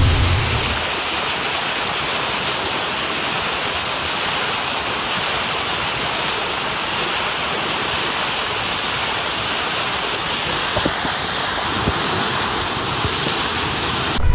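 Steady rushing and splashing of water breaking off a moving boat's bow, with wind on the microphone.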